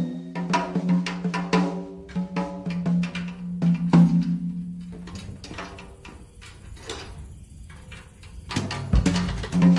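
Soundtrack music with a sustained low tone and a beat of sharp percussion hits; the beat thins out around five seconds in and returns heavier with deep drum hits near the end.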